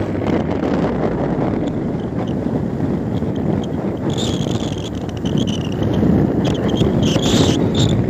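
Wind rushing over the microphone of a moving Bajaj Pulsar 220F motorcycle, with its single-cylinder engine running underneath. A high, steady insect buzz comes in about halfway through.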